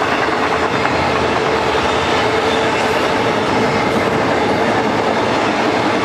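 Intermodal freight train's container and trailer cars rolling past: a steady, loud rumble of steel wheels on rail, with a faint steady high tone running through it.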